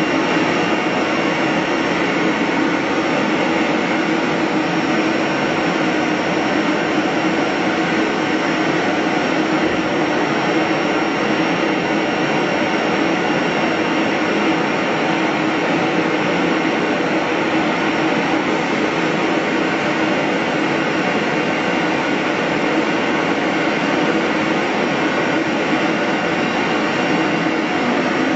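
A CNC wood router running and routing a board: a steady, unbroken machine drone with a thin high whine held throughout.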